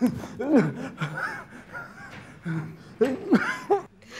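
A person's voice making several short, unclear vocal sounds that sweep up and down in pitch.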